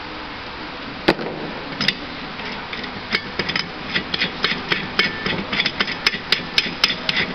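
Sharp metal clicks and light knocks from the steel parts of a TDP 0 tablet press as the lower die is fitted by hand. There is one knock about a second in, then an irregular run of clicks, several a second, some with a brief ring.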